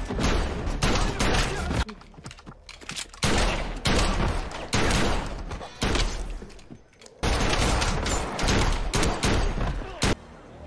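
Film-soundtrack gunfire: rapid handgun and rifle shots fired in three dense volleys, each shot ringing out with an echoing tail, separated by two short quieter gaps.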